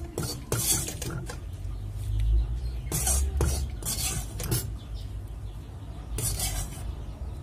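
Metal spatula scraping and clinking against a kadai (wok) as cooled fried masala is scooped out onto a plate, in a series of separate scrapes with short pauses between them.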